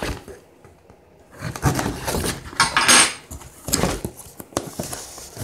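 A kitchen knife slitting the packing tape on a cardboard shipping box, then the cardboard flaps being pulled open. It comes as a few short scraping, rustling bursts starting about a second and a half in, the loudest near three seconds.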